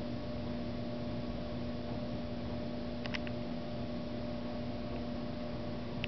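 Steady electrical hum and hiss of the recording, with a quick cluster of faint clicks about three seconds in.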